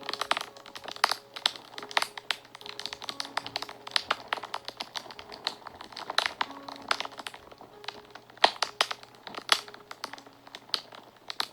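Wood fire crackling, with many irregular sharp pops and snaps, a few louder than the rest. Faint held notes of soft background music sound underneath.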